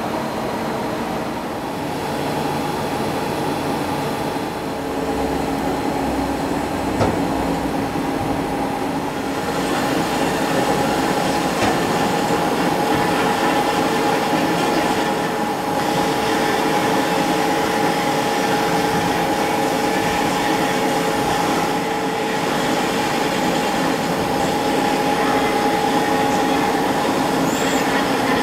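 Takisawa TW46 CNC lathe running under power: a steady mechanical drone with a held whine from the spindle drive and hydraulics, growing louder about ten seconds in.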